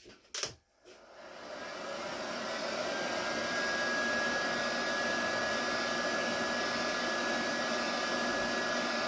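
A single knock, then a small electric blower motor starts, builds up over about two seconds and runs steadily with a thin high whine over its rushing noise.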